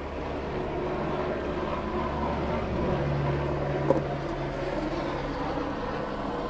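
Steady low engine drone of a vehicle, with a single click about four seconds in.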